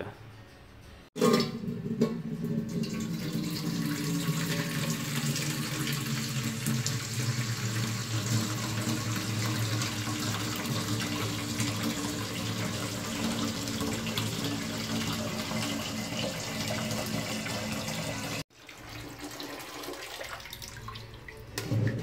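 Kitchen tap running a steady stream into a metal cooking pot in a steel sink, the pot filling with water. It starts abruptly about a second in and cuts off sharply a few seconds before the end.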